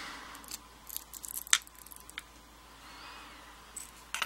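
Light metallic clicks and ticks from handling the disassembled pin-tumbler padlock core and its pins. A cluster of small ticks comes about a second in, with one sharper click among them, and a couple more come near the end, over soft rustling.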